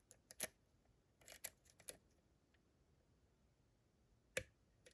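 Faint, sharp metallic clicks of lock picking tools working in a DORMA DC500 lock cylinder. There are a couple of clicks at the start, a short cluster about a second and a half in, and a single click near the end.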